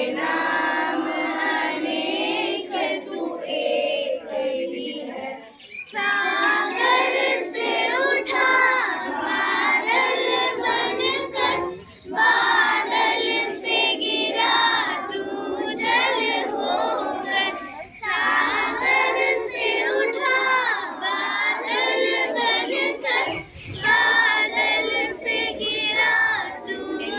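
A group of schoolchildren singing a Hindi song together in unison, in phrases of about six seconds with short breaks between them.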